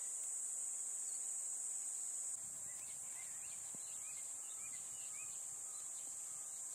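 Steady high-pitched insect chorus, dropping slightly in level at a cut about two seconds in. A few short bird chirps come in the middle.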